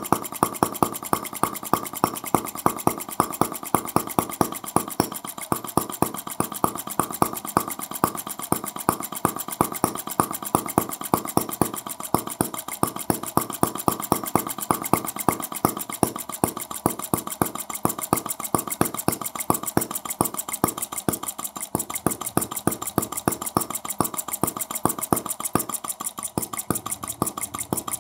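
Scale model of Carl Benz's 1885 single-cylinder engine running steadily: a sharp, even pop several times a second over a continuous light mechanical clatter.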